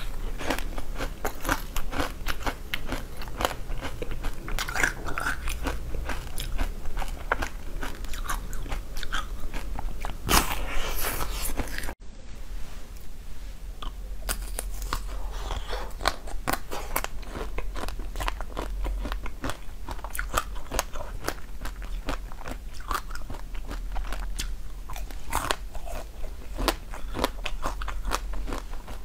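Biting and chewing frozen chocolate: a dense run of crisp cracks and crunches, broken by a momentary gap about twelve seconds in.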